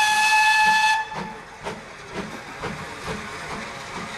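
Steam locomotive whistle blown once for about a second, followed by the locomotive's exhaust beats, about two chuffs a second, as it works along the track.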